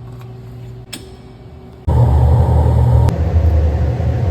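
Stick welding arc from a Fronius AccuPocket 150/400 battery-powered stick welder: after a click about a second in, the arc strikes suddenly about two seconds in and runs on loud and steady, a noisy crackle over a low hum.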